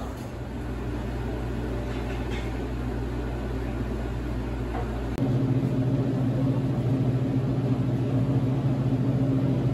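Steady electrical hum of diner appliances, which steps up to a louder hum about five seconds in.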